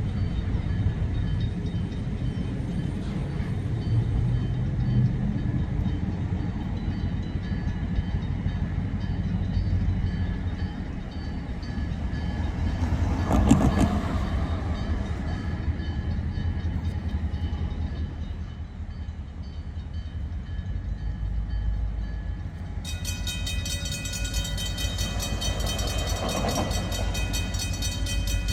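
Freight train cars loaded with wood rolling past, a steady rumble of wheels on rail, with one loud clank about halfway through. Near the end, a steady high ringing made of several tones starts suddenly.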